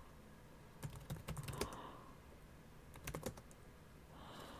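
Faint typing on a computer keyboard: a short run of keystrokes about a second in, and a few more around three seconds in.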